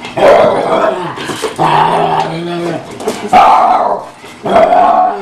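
Small white dog growling and barking in four loud bouts, each lasting up to about a second.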